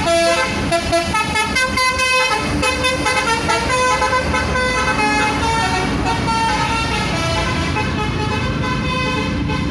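Bus telolet horn playing a tune of stepped notes, several a second, over the bus's engine.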